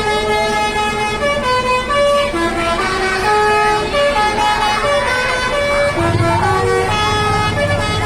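Indonesian tour bus telolet horns playing a melody: a run of sustained pitched horn notes that step quickly from one pitch to the next, several tones sounding together. A low rumble comes in more strongly about six seconds in.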